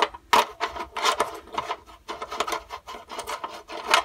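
A run of irregular scraping and rasping strokes, about three a second, from hand work on the small engine's metal parts.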